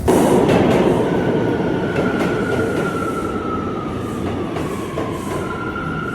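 New York City subway train running loud on the rails, with a high steady wheel squeal or whine over the rumble. The squeal slides slightly lower, then returns higher near the end.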